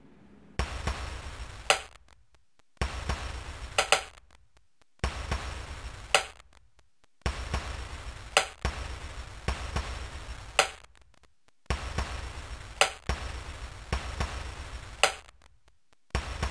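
Rhythmic soundtrack loop, repeating about every two seconds: a burst of hiss over a low hum switches on abruptly, a sharp click snaps in the middle of each, and then it cuts to a moment of silence. It repeats seven times.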